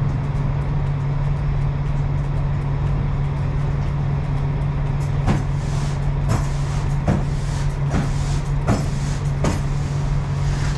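Push broom sweeping a box truck trailer's wooden floor. From about halfway in, its strokes come as short scrapes every half second or so, over a steady low engine-like hum.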